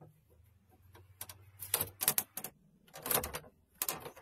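Sharp wooden taps and clicks in a quick, irregular series, loudest around two and three seconds in: carpentry work, wood being struck or knocked together. A faint low hum sits under the first three seconds.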